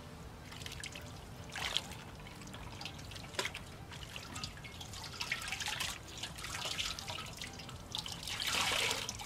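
Water splashing, trickling and dripping as a wet microfiber cloth is dunked and wrung out over a steel bowl of water, with the loudest, longest splash near the end.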